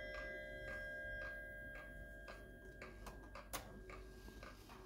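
Kieninger mechanical wall clock ticking about twice a second as the last notes of its chime fade away. One sharper click comes a little past halfway.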